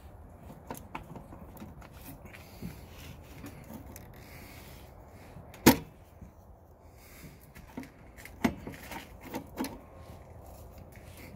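Replacement Zinsco-style main breaker being pushed and wiggled by hand onto the panel's bus bars: scattered plastic clicks and knocks against the metal panel, with one sharp knock about halfway and a quick run of smaller knocks near the end.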